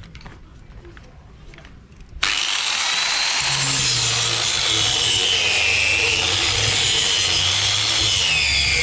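A power grinder cutting into the steel of a machete blade, starting abruptly about two seconds in; its high whine dips and rises as the tool is pressed into the work.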